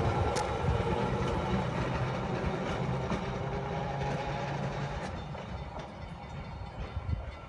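Wheeling Traction Company trolley No. 639 rolling along its rails, its wheels and trucks rumbling, with a few sharp clicks. The sound fades steadily as the car moves away.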